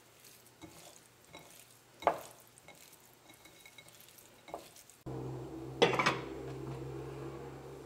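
Hands mixing raw shrimp with salt and ground pepper in a ceramic bowl: soft squelches and a sharp knock against the bowl about two seconds in. About five seconds in a steady hum starts, and a dish clatters down a moment later.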